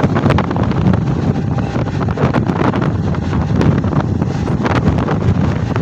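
Wind rushing over the microphone as a Mumbai suburban electric local train runs at speed, with the steady rumble of the train and scattered clicks of the wheels on the rails.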